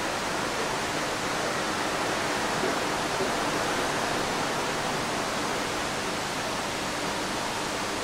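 Steady, even hiss of background noise with no distinct sounds standing out.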